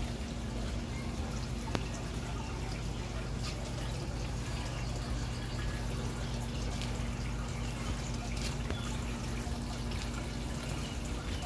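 Water trickling and dripping down inside a vertical Tower Garden's column into its reservoir, over a steady low hum.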